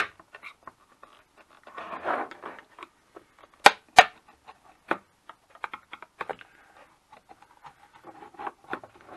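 Flat-blade screwdriver scraping and picking at a Seagate hard drive's label and metal case while the label is peeled back: scattered small ticks and scratches, a rustling stretch about two seconds in, and two sharp clicks a third of a second apart near the middle.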